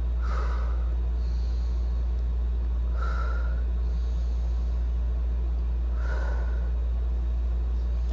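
A woman taking deep, laboured breaths, one about every three seconds, during an attack of shortness of breath, over a loud steady low rumble.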